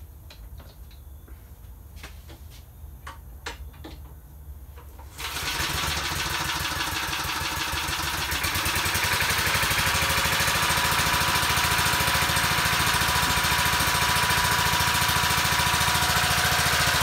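Small flathead lawn mower engine starting about five seconds in and then running steadily, not very loud, through its custom exhaust. Before it starts there are a few light clicks.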